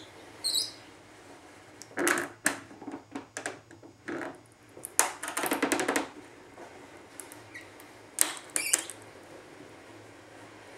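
Hand-cranked plywood rack-and-pinion lift: the wooden 8-tooth gears clatter against the plywood racks in several irregular bursts of clicking and rattling, the longest about five to six seconds in.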